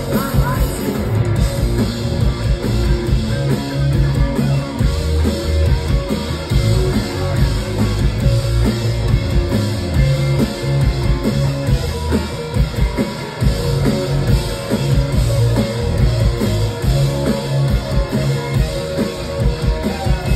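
Rock band playing live: electric guitar and bass over a drum kit, loud and steady.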